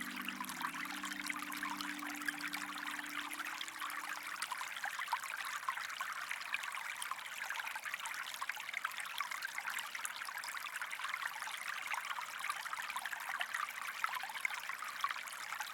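Running water of a small stream, trickling and burbling steadily, with soft background music fading out in the first few seconds.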